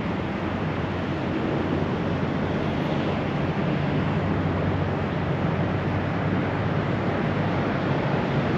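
Steady rush of high, fast water pouring over a mill dam.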